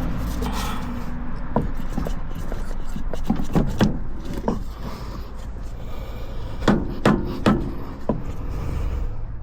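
Parts and tools being handled during ATV axle work: scraping and rubbing with a series of sharp knocks, several close together about three and a half seconds in and again around seven seconds, over a steady low hum.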